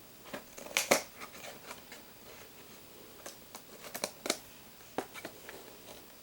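Taped cardboard booster box being cut open and handled: scattered sharp clicks and rustles of tape and cardboard, the loudest pair about a second in and another cluster around four seconds in.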